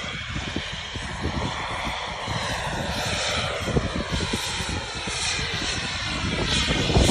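Radio-controlled F-22 Raptor model jet going around after an aborted landing, its engine whine rising and then falling in pitch as it passes and climbs away. Gusty wind rumbles on the microphone.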